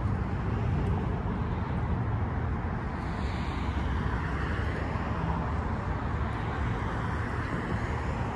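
Steady outdoor road-traffic noise from a nearby street, a continuous rumbling hiss with no single event standing out.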